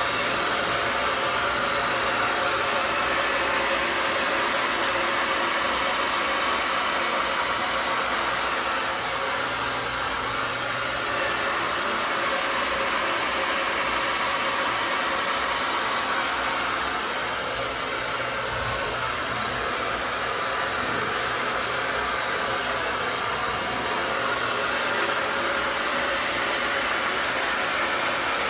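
BaByliss Pro Ceramix Xtreme hair dryer running continuously, a steady rush of blown air with a whine in it; its sound shifts slightly a couple of times.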